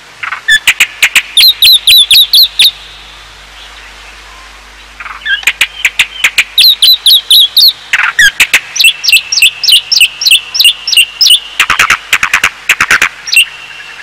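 A bird singing: two phrases of fast, evenly repeated high chirps, about five notes a second, the first lasting about two and a half seconds and the second starting about five seconds in and running some eight seconds.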